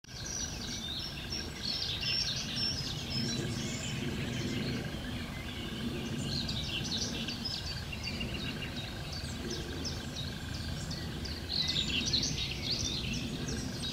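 Several birds singing and chirping, with many short high calls throughout, over a thin steady high tone and a low steady background hum.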